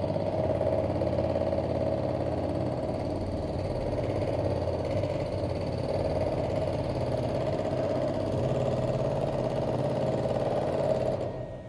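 Robotic descaling arm running: a steady machine noise with a strong hum, which drops away suddenly near the end.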